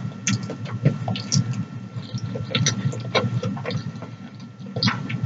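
Close-up mouth sounds of eating cheesy noodles: wet chewing and sucking in of noodle strands, with irregular short smacks and clicks over a steady low hum.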